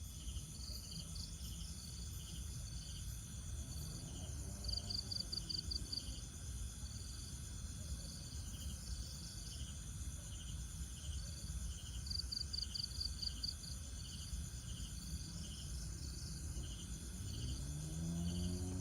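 A chorus of insects chirping: short pulsed trills repeat every second or so over a steady high whine, above a low rumble of background noise. Near the end, low background music starts to swell in.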